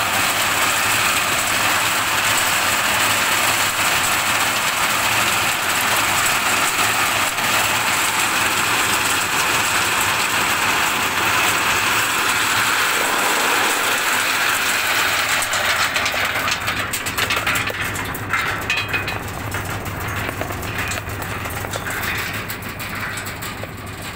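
Stone gorabal polishing machine running, its motor giving a steady hum under a dense rushing rattle of nuts tumbling through it and pouring down the chute. The rattle thins out and gets quieter over the last several seconds, breaking into scattered clicks.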